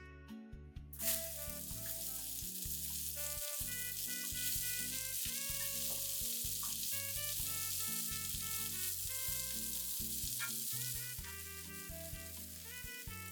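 A steady hiss that starts suddenly about a second in and eases near the end, over background music.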